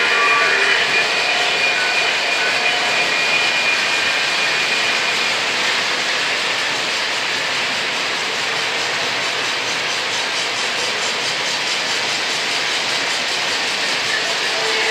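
Lionel O gauge model freight trains rolling along the track: a steady, loud rush of metal wheels and running gear, with a few steady tones on top in the first few seconds that then drop away.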